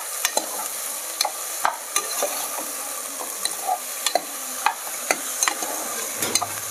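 Diced potato, brinjal and onion sizzling steadily in hot oil in a pressure cooker while a steel ladle stirs them, with irregular sharp scrapes and clinks of the ladle against the pot as the vegetables are sautéed.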